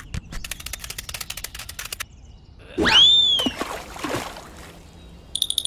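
Added sound effects: a fast run of clicks for about two seconds, then a loud whistle-like glide that rises and falls, a shorter one a second later, and a steady high ringing tone starting near the end.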